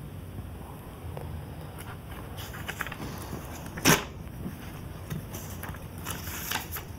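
A single sharp knock about four seconds in, over faint room noise with a low hum.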